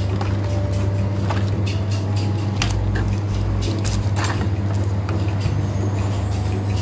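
Plastic blister packs and cardboard cards clicking and rustling as they are handled on a wire peg rack, a few sharp clicks at irregular moments, over a steady low hum.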